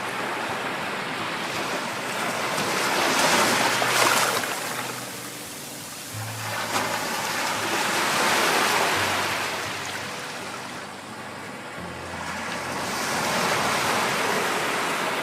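Sea waves washing onto a shore, the surf swelling and falling back three times, about every five seconds.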